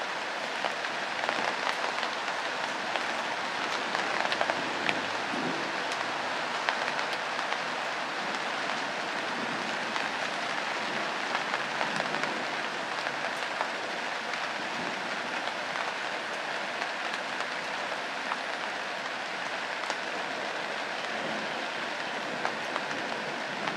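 Steady rain hissing on leaves and ground, with scattered sharp ticks of individual drops.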